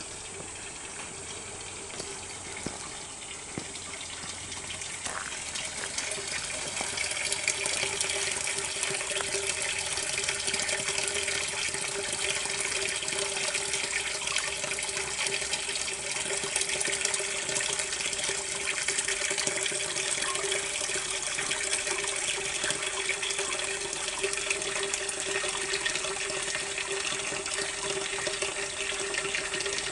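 Water pouring steadily from a pipe spout into a stone shrine purification basin (temizu basin) and splashing over its rim. It swells over the first several seconds, then runs on evenly.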